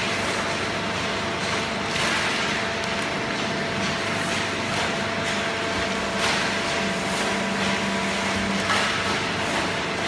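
Horizontal waste paper baler and its chain conveyor running: a steady machine hum with a few even held tones. Now and then comes a short rustling swish as loose waste paper is thrown onto the conveyor.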